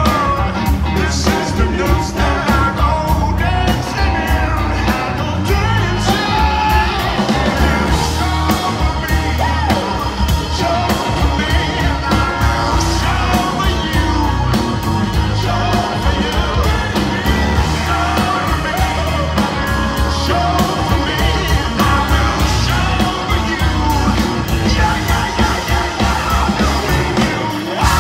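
Live rock band with a horn section playing, a male lead singer singing and shouting into the microphone over bass and a steady beat.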